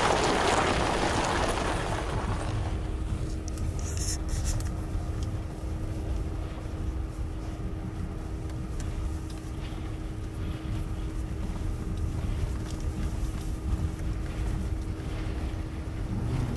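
Four-wheel-drive vehicle driving a mountain dirt road: a steady low engine drone and rumble, with a louder hiss that dies away in the first few seconds.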